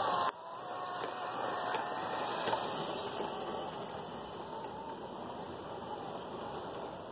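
Model train rolling past close by: a steady whirring rattle of its wheels on the track, with scattered small clicks. The level drops abruptly just after the start.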